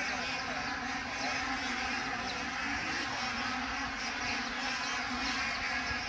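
A steady motor hum with an even hiss, and faint short high chirps over it.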